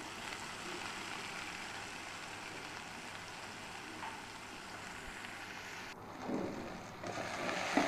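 Sliced onions, green chillies, ginger and garlic sizzling steadily in hot oil in an aluminium pan as they sauté. The sizzle dips suddenly about six seconds in, then picks up again.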